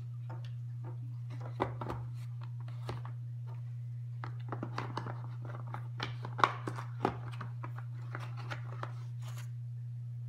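Hands handling a hair clipper kit and its molded box insert: scattered light clicks, knocks and rustles, the sharpest knock about two-thirds of the way through. A steady low hum runs underneath.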